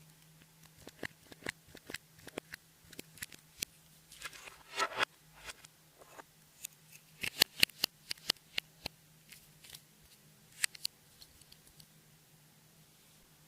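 Clear slime being squeezed and stretched by hand, giving irregular sharp pops and clicks as air pockets burst, with a longer squelch about four seconds in and a quick run of pops about seven seconds in.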